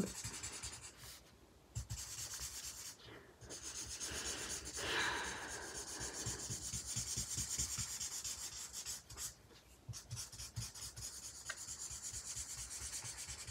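Promarker alcohol marker's nib rubbing back and forth on drawing paper in repeated colouring strokes, with a few brief pauses.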